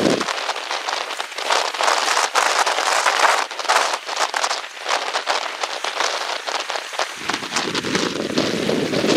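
Heavy rain pattering on a surface, a dense crackle of countless drops. Near the end, low wind noise buffeting the microphone comes back in.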